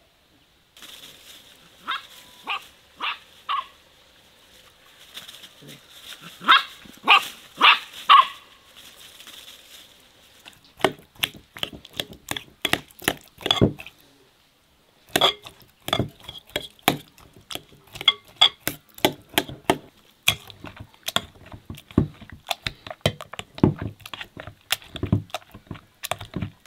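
A dog barks in two short runs of about four barks each. Then comes a long series of quick clicks and taps from a knife cutting soft persimmons in a glass bowl and a metal potato masher mashing the fruit against the glass.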